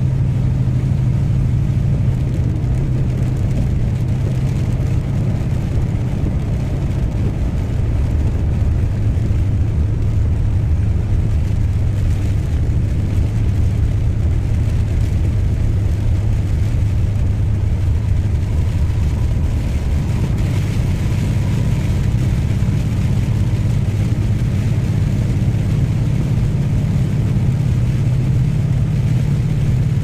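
Steady engine and road noise heard inside a moving vehicle, a continuous low drone that does not change.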